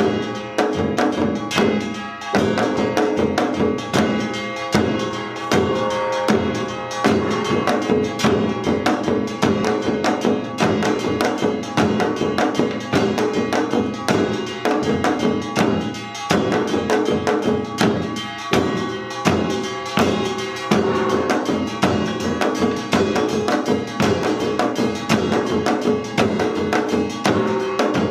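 Samul nori percussion ensemble playing Yeongnam rhythms in a steady, fast, dense pattern of drum strokes from buk barrel drums and janggu hourglass drums, under the ringing clang of kkwaenggwari and jing gongs.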